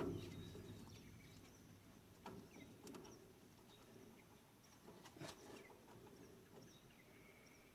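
Near silence with a few faint clicks and taps, about two to three seconds in and again a little past five seconds, as small metal parts of a chain drive are worked by hand.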